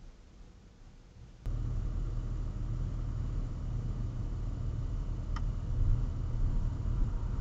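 Car engine and road rumble heard from inside a moving car's cabin, starting suddenly about one and a half seconds in after a faint, quiet stretch. A brief high chirp sounds near the end.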